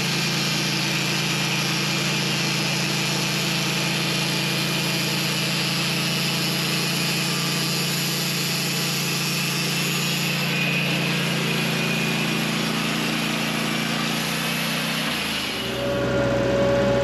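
Portable sawmill's engine running steadily, with a hiss of higher noise over its hum; about fifteen seconds in the sound changes, the hiss dropping away and the engine settling to a different, lower note.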